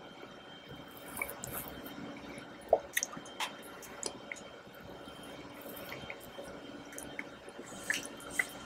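Close-up wet mouth sounds of soft chocolate mousse cake being eaten: scattered short smacks and sticky clicks, the loudest about three seconds in, with no speech.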